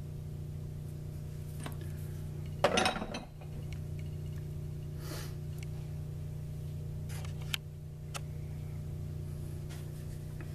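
Metal-on-metal clatter from handling tooling on a metal lathe while a dial indicator is set against the work in the four-jaw chuck: one loud clunk about three seconds in and a sharp click near the middle, over a steady low hum.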